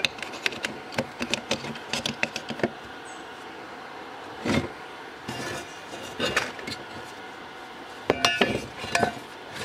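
Steel bars and square tubing being handled and set down on a wooden table: a quick run of light metallic clinks and taps, then a few heavier knocks and scrapes of metal on wood.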